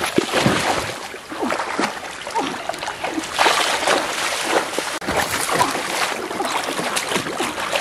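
Water splashing and sloshing irregularly as feet and hands churn a shallow stream, over the steady rush of the flowing water.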